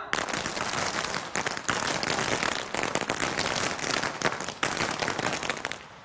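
Feu de joie: a rapid, continuous ripple of blank rifle shots fired one after another down the ranks of the guard of honour. It lasts nearly six seconds and cuts off suddenly near the end.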